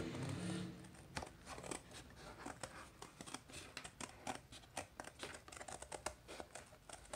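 Scissors cutting through thin cereal-box cardboard: an irregular run of short, crisp snips as a drawn shape is cut out. A low pitched sound fades out within the first second.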